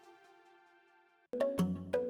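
Background music: a held synth note fading away, then a new phrase of plucked, mallet-like notes over a bass line starting a little past halfway.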